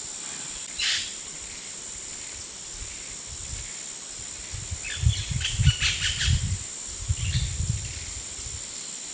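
Steady, high-pitched drone of insects. A brief chirp comes about a second in, and a stretch of crackling rustles with low thumps runs from about five to eight seconds in.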